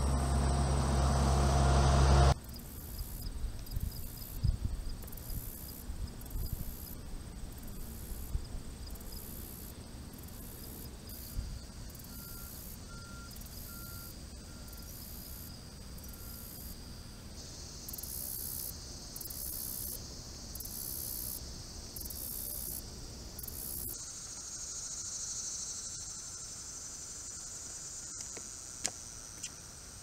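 Crickets and other insects calling in high-pitched pulsing trills, the chorus shifting higher about halfway through. It is preceded by a louder low rumble that cuts off suddenly about two seconds in.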